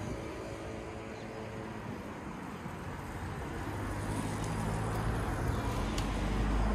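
Road traffic going past, with a vehicle's low engine rumble building and growing louder toward the end.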